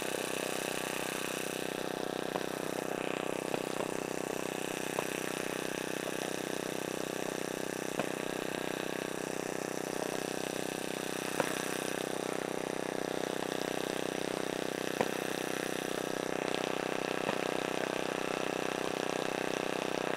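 Engine idling steadily, with a few short sharp pops scattered through it.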